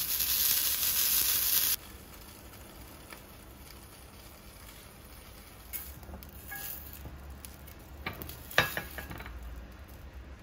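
King oyster mushrooms sizzling in oil in a small rectangular tamagoyaki pan. The sizzle cuts off abruptly about two seconds in, followed by a few light taps and clinks as food is set into ceramic bowls.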